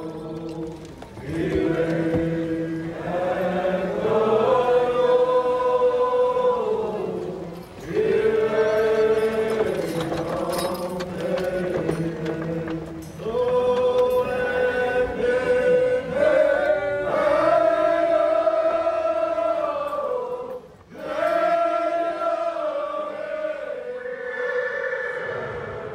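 Soundtrack music of choir-like vocal chanting, sung in long held phrases with short breaks between them.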